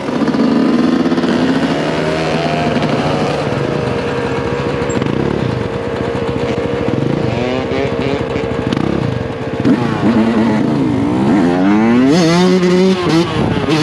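Yamaha YZ125 two-stroke dirt bike engine running under throttle. It holds a fairly steady pitch for several seconds, then revs up and down several times near the end.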